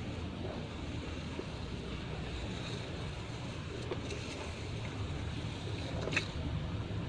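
Steady low rumble, with a single sharp click about six seconds in.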